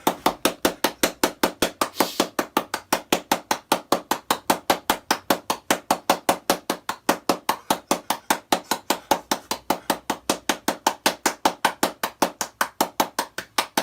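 Rapid, even knocking, about five strikes a second, kept up without a break.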